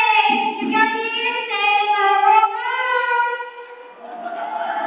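Voices singing held notes that slide between pitches. The singing dips and breaks off about three and a half seconds in, and voices carry on after it.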